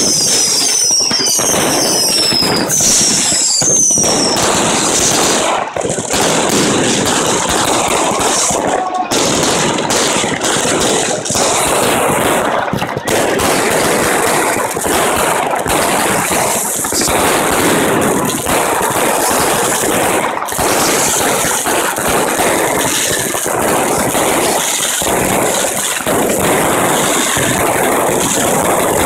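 New Year's fireworks and firecrackers going off at close range in a dense, continuous barrage of crackling and bangs. In the first few seconds several shrill whistles slide down in pitch over the crackle.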